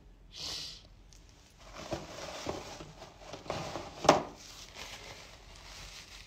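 A tearful woman's sharp sniff, then a paper tissue rustling and crinkling as it is pulled out and handled, with a sharp crackle about four seconds in, the loudest moment.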